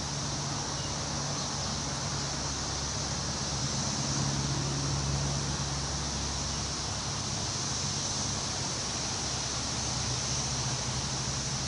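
Wind rustling through tree leaves as a steady hiss, with a low steady hum underneath.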